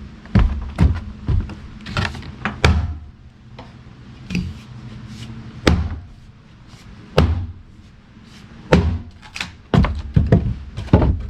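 Axe chopping into a log: about fifteen irregular thunks, some spaced out and some in quick runs, over a low steady hum.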